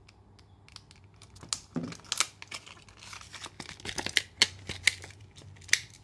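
Clear plastic blister pack being cut with a hobby knife and pulled apart by hand: stiff plastic crackling and crinkling in irregular sharp snaps, louder and denser in the second half.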